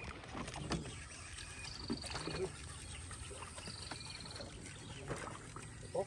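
Quiet ambience aboard a small boat on a lake: faint steady water noise with a few sharp knocks, and twice a short high trilling chirp.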